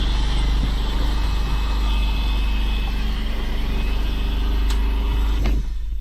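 A boat engine running steadily: a low, even hum with a noisy wash over it. It cuts off abruptly near the end.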